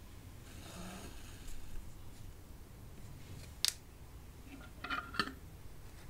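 Hand cross-stitching sounds: a soft rasp of cotton thread drawn through the stitching fabric about half a second in, then a sharp click a little past the middle and a short run of small clicks and taps about a second later.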